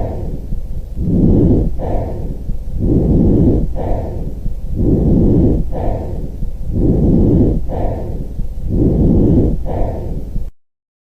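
Recorded breath sounds in the chest: about five regular breathing cycles, each a longer loud phase and a shorter softer one, cutting off abruptly near the end.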